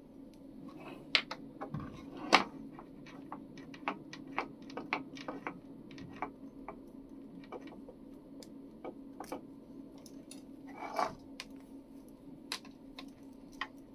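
Scattered sharp clicks and taps of plastic housing and cable being handled as a filament dryer's power cord is plugged in, over a faint steady hum.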